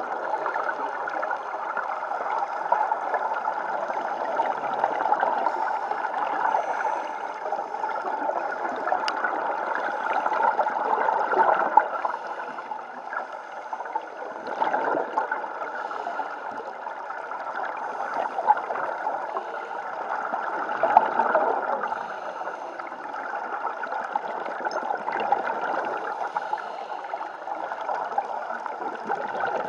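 Scuba divers' regulator exhaust bubbles gurgling, heard underwater over a steady wash of water noise. The bubbling swells every few seconds as the divers exhale.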